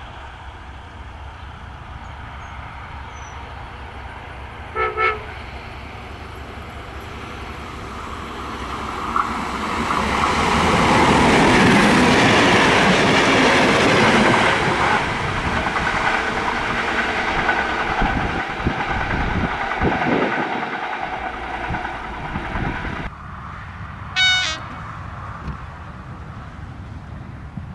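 A passenger train sounds two short horn blasts about five seconds in, then passes at speed, its wheels rumbling and clattering over the rails, loudest around the middle and dying away. After a sudden change in the sound, an approaching EA-class electric locomotive gives one short horn toot near the end.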